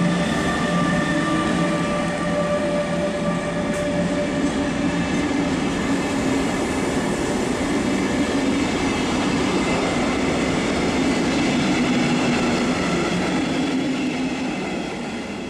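DB class 146 electric locomotive with double-deck coaches rolling past: a steady electric whine from the locomotive's traction equipment over the rumble and clatter of the wheels on the rails. The whine fades as the coaches follow, and the whole train sound dies away near the end.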